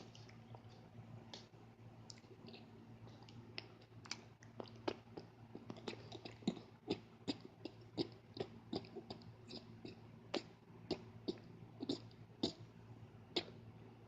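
A person making a run of irregular sharp clicks and smacks, sparse at first and coming two or three a second from about four seconds in.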